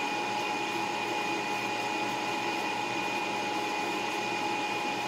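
A small electric motor running steadily: a constant whir with a thin, steady high whine over it.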